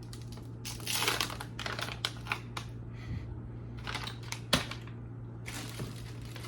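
Food packaging being handled: irregular rustling and crinkling with scattered sharp clicks, over a steady low hum.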